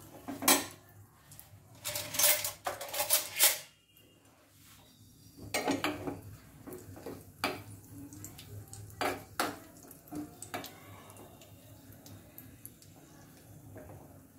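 Metal spoon clinking and scraping against a small steel tadka pan while dried red chillies are stirred in hot ghee. A quick run of clatters comes about two seconds in, then single knocks every second or two, thinning out near the end.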